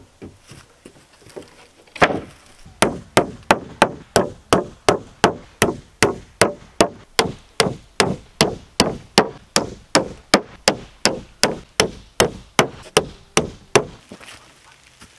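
Claw hammer driving nails through an OSB sheet into a wooden plank frame: a steady run of sharp blows, about two to three a second, starting about two seconds in and stopping near the end.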